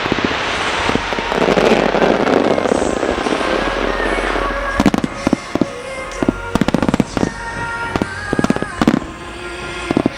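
Fireworks bursting over music: a dense, loud stretch of crackling and booming in the first few seconds, then separate sharp bangs, some in quick clusters, with the music's held notes heard between them.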